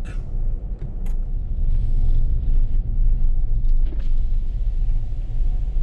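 A vehicle driving along a road, a steady low rumble that grows louder about a second in as it picks up speed.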